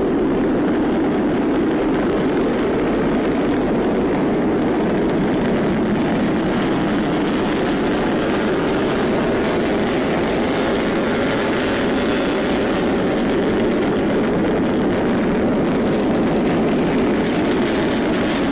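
Rocket engine of the SpaceX Starship SN5 prototype, a single Raptor, firing during its hop: a loud, steady, unbroken rumbling rush of exhaust noise.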